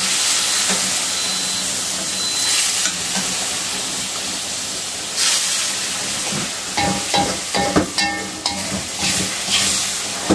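Turmeric spice paste sizzling steadily in a metal wok. From about six seconds in, a spatula scrapes and knocks against the wok, with short metallic rings.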